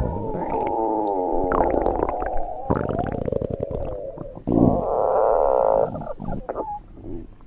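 Human stomach growling: long wavering, gurgling rumbles, then a louder drawn-out growl about two-thirds of the way in, trailing off into short faint gurgles.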